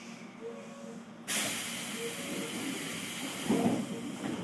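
Compressed air hissing out of an Odakyu 1000-series train's pneumatic system, starting abruptly about a second in and cutting off sharply about three seconds later, with a knock near the end. A short beep repeats about every second and a half.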